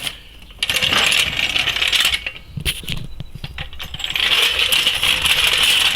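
Metal parts rattling and clinking in two long stretches, the second starting about four seconds in: dense, jingling clatter of steel jacking or tool gear being handled.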